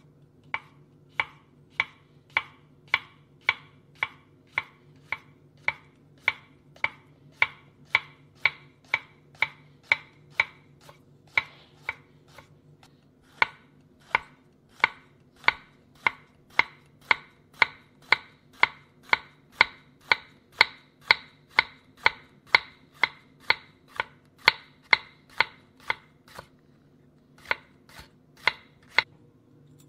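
Knife chopping vegetables on a cutting board in steady, even strokes of about two chops a second, pausing briefly twice.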